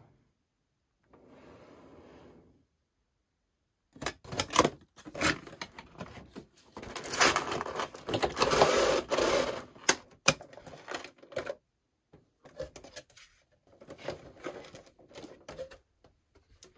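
A cardboard toy box being opened and its plastic-windowed insert slid out: a run of clicks, scrapes and rustles of cardboard and plastic packaging, loudest about midway, then lighter handling sounds near the end.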